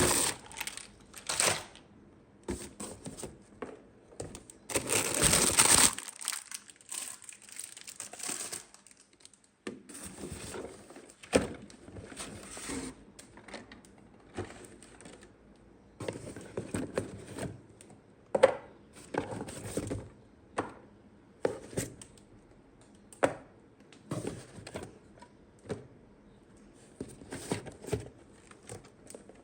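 Toy packaging being handled and opened: plastic wrap and packing crinkling and tearing, with a longer, louder crinkle about five seconds in, then scattered sharp clicks and taps.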